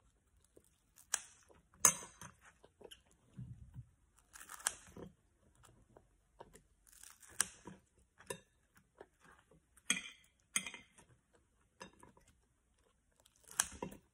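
A child chewing dumplings with close, wet mouth sounds, broken by a few short huffing breaths and scattered clicks, among them kitchen scissors snipping dumplings.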